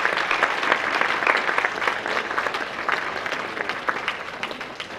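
An audience applauding, a dense spread of many hands clapping that gradually thins and dies down over the last couple of seconds.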